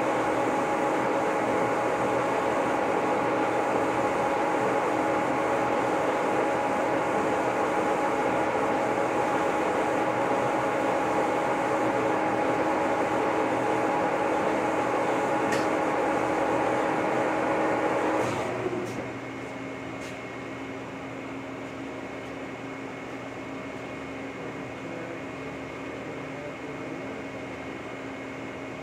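Lucas model 41 horizontal boring mill running through a boring cut on an excavator quick-attach pin bore, a steady machine whine of several tones. About eighteen seconds in the mill stops and the level drops, leaving a quieter steady hum.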